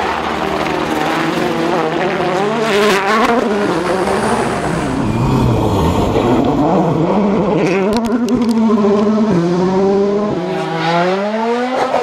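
Rally cars with 1.6-litre turbocharged four-cylinder engines at full throttle on gravel stages, across several passes. The engine pitch climbs and drops sharply through quick gear changes and lifts, with a few sharp cracks.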